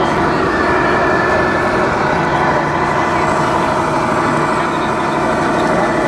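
Radio-controlled scale-model truck and crawler loader running, with a steady diesel truck-engine sound from their onboard sound modules.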